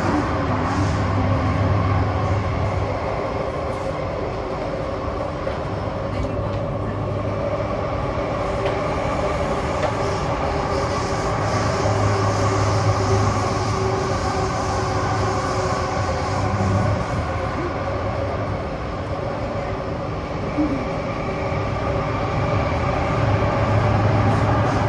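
Singapore MRT train running at speed on the underground Thomson-East Coast Line, heard from inside the carriage. There is a steady rumble of wheels on rail, with a hum whose low part swells and fades every few seconds.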